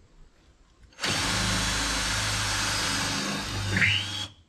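Power drill with a 3/16-inch bit drilling a pilot hole through the car's body metal: one steady run of about three seconds, starting about a second in, with the whine rising just before it stops suddenly.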